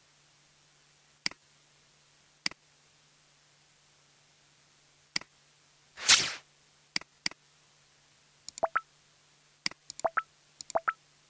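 Computer mouse clicks, scattered singly and in quick pairs, over a faint steady hum. One loud whoosh about six seconds in. Near the end the clicks come in a quick cluster, some with a short pitched blip.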